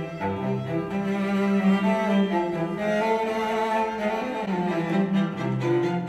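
Classical music with bowed strings and slow, held notes over a low bass line, played back through PreSonus Eris E5 XT studio monitors and recorded by a microphone in the room. Near the end the playback switches to the older PreSonus Eris E5 monitors.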